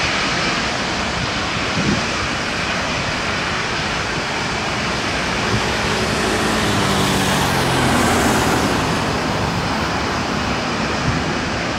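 Airbus A321neo's CFM LEAP-1A turbofan engines running on the runway: a steady jet rush that swells a little about eight seconds in, with a falling tone under it just before.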